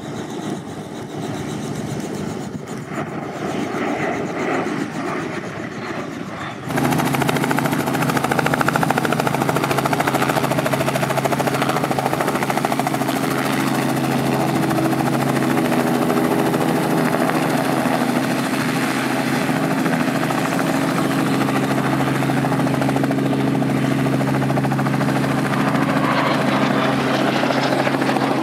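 A quieter, uneven engine-and-ambient sound for about the first seven seconds, then a sudden switch to the loud, steady drone of a Robinson R44 helicopter's engine and rotor, carrying a few low steady tones.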